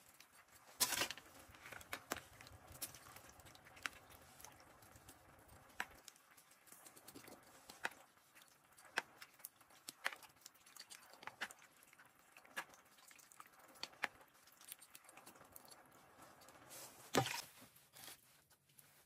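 A metal spoon clinking and scraping against a bowl as liquid is spooned over a skewered piglet: scattered light clicks and taps, with a louder knock near the end.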